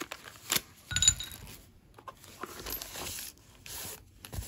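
Small metal fittings clinking in a plastic bag, with one sharp ringing clink about a second in, followed by cardboard and paper packaging rustling.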